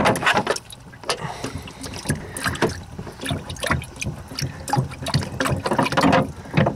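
Standing water sloshing and splashing in a flooded car-trunk battery well as a hand works in it, irregular splashes throughout. The water has leaked in through clogged convertible-top drains.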